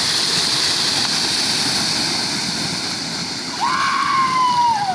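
Water buffalo splashing through a muddy, water-filled race track, with a steady churning of water that eases as the pair pulls away. About three and a half seconds in, a long shout slowly falls in pitch.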